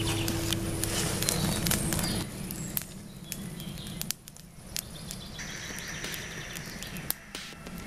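Wood campfire crackling, with many short sharp snaps and clicks as sticks are fed into it by hand.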